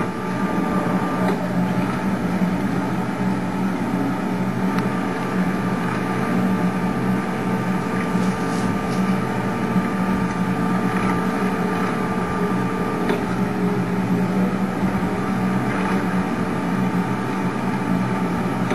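A steady hum with a few held tones over a constant hiss, unchanging throughout.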